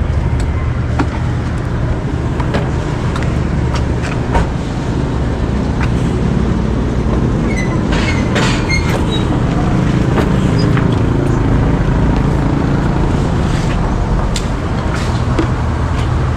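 A vehicle engine running steadily with a low rumble, with a few short clicks over it.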